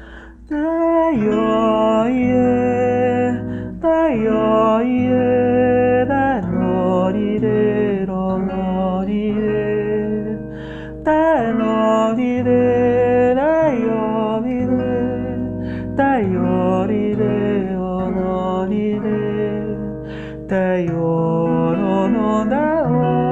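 Gentle acoustic guitar music: a melody that glides smoothly between notes over sustained low bass notes, in phrases of a few seconds each.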